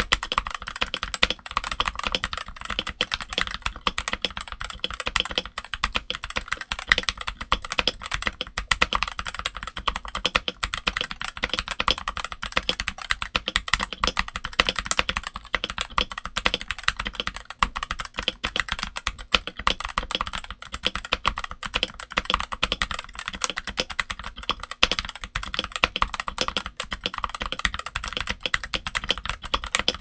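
Continuous fast typing on a Redragon K530 Pro mechanical keyboard fitted with lubed Redragon Brown tactile switches, switch pads and the Tempest mod, under OEM-profile doubleshot shine-through ABS keycaps: a dense, even stream of muted key clacks.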